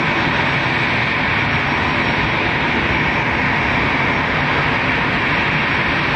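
Jet engines of a taxiing Airbus A380 running at low power: a steady, even rush that does not change.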